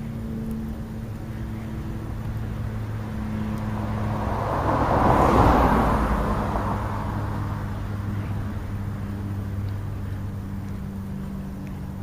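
A car passing by on a nearby road: its noise swells to a peak about halfway through, then fades away, over a steady low hum.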